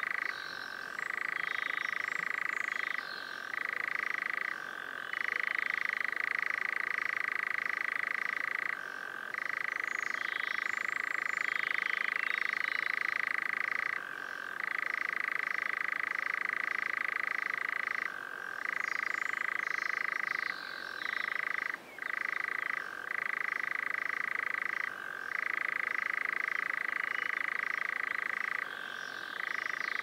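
European nightjar churring: a long, continuous trill held for several seconds at a time, broken by brief pauses. Faint higher chirps sound above it.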